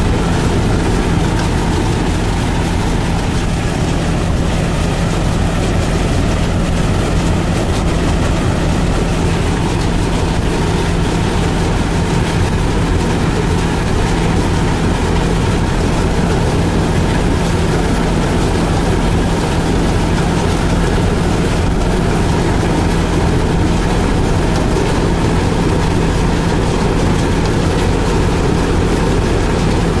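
Combine harvester's diesel engine running steadily while its unloading auger pours threshed rice grain: a loud, constant drone with an even hiss over it.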